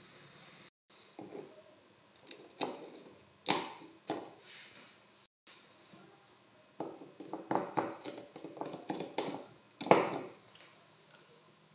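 Light clicks, taps and brush scrapes of small gearbox parts being greased and fitted: a metal ring gear and the screwdriver's gearbox housing. The clicks come sparsely at first, then in a quick run, the loudest about ten seconds in as a part is pressed into the housing.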